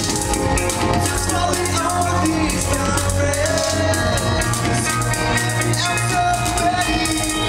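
Live band playing a song at full volume: drum kit with steady cymbal hits over bass and pitched instruments, heard in the room from among the audience.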